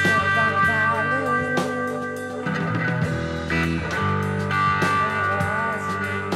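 Electric guitar played through effects pedals: held chords with bent, wavering notes above them.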